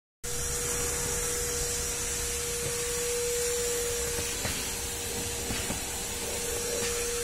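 Vacuum cleaner running steadily: a constant motor whine over a hiss of rushing air, cutting in just after the start.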